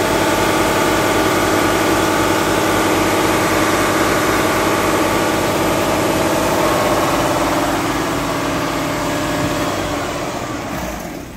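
Mercedes-Benz OM 470 LA Euro 6 inline six-cylinder diesel engine of an Actros MP4 truck idling steadily. The sound drops in level over the last second or so.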